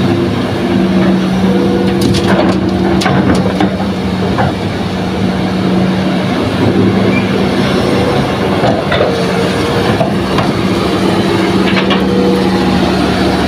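Hitachi hydraulic excavator's diesel engine running with a steady drone while it loads soil into a dump truck. Scattered knocks and clatter, most of them a couple of seconds in and again near the end.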